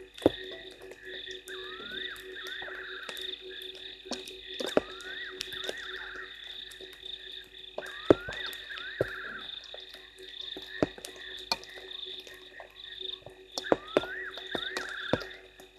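Night chorus of frogs at a waterhole: steady high trilling from many callers, with one call repeated every couple of seconds that rises and then breaks into a quick trill. Scattered sharp taps of raindrops cut through, the loudest few about four and eight seconds in.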